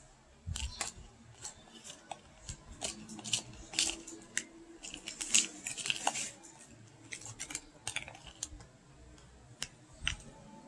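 Metal spoon stirring halo-halo in a clear plastic cup: a run of quick, irregular clicks and scrapes as the spoon works through the shaved ice and knocks against the cup.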